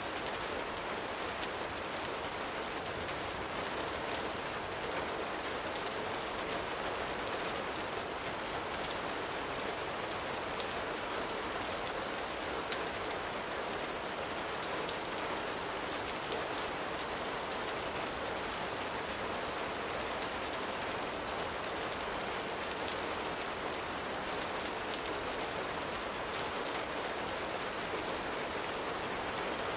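Steady rain falling, an even hiss of drops on surfaces.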